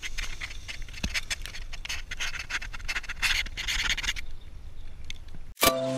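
Leaves and twigs scratching and rubbing against a harness-mounted camera as it lies in the undergrowth, a dense crackly rustle that fades out about four seconds in. Just before the end a steady electronic chime begins.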